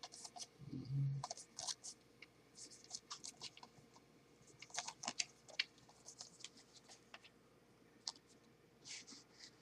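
Handling a Blu-ray case in its cardboard slipcover: scattered light clicks, taps and scraping of plastic and card, with a soft thump about a second in.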